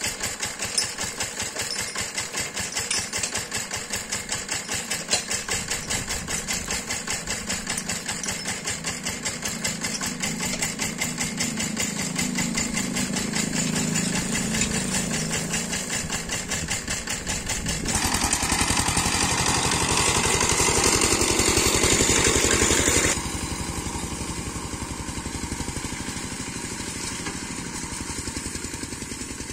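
Kentavr walk-behind tractor engine idling with a steady pulsing beat. About 18 seconds in it gets louder for around five seconds, then drops to a steadier, quieter running sound as the tractor moves off pulling the chain harrows.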